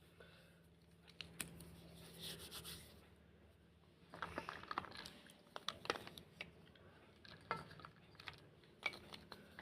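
A black slate bar being scraped and crumbled: a short rasping scrape, then two bursts of crisp, crunchy crackling.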